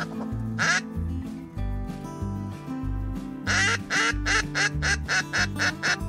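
Duck quacking: one quack about half a second in, then a rapid run of about ten quacks over the last two and a half seconds. Background music with a steady beat plays throughout.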